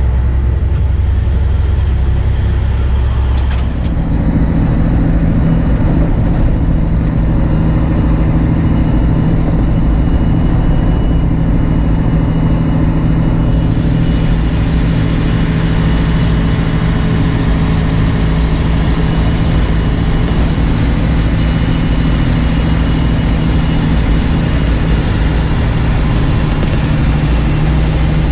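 A large engine runs steadily, with a faint high whine above it. About four seconds in the sound shifts from a deep rumble to steady engine tones.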